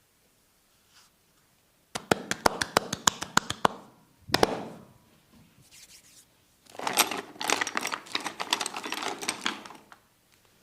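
Sounds of a hands-on head massage: a quick run of sharp clicks or taps, about eight a second, then one heavier hit, then a few seconds of dense, scratchy crackling.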